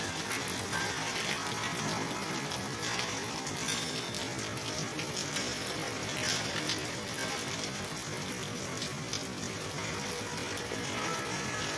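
Steady rain falling: a dense patter of countless small drops merging into a constant hiss.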